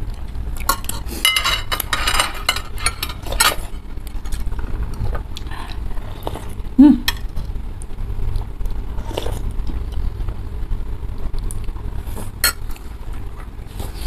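Metal spoons and forks clinking and scraping against ceramic soup bowls, densest in the first few seconds, with a short low sound near the middle.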